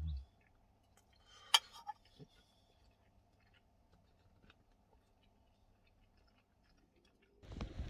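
Faint eating sounds in a quiet van cabin: small cutlery clicks and chewing, with one sharper click about a second and a half in and a low thump at the very start. Near the end, steady rushing noise like wind on the microphone comes in suddenly.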